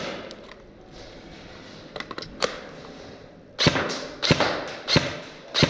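A quiet stretch with a few faint clicks, then, a little past halfway, four sharp cracks or knocks about two-thirds of a second apart, each ringing briefly in a small hard-walled room.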